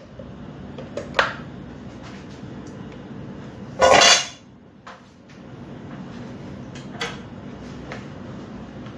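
Kitchen handling sounds: scattered clicks and knocks of metal bowls and utensils, with one louder clatter about four seconds in.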